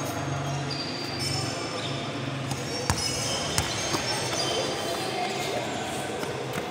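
A basketball dribbled on an indoor court: a few sharp bounces around the middle, over background chatter.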